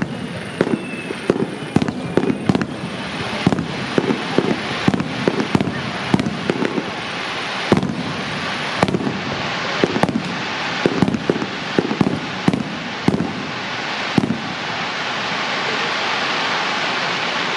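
Fireworks display: a fast string of aerial shell bursts, often one or two a second, over a building crackle. About fourteen seconds in, the bangs thin out into a dense, steady crackling hiss.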